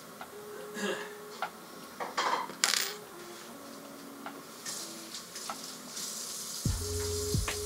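Light clicks, clinks and short scraping sounds of small objects being handled on a work table, with one sharp click about two and a half seconds in. Soft background music plays underneath, and it becomes fuller, with bass, near the end.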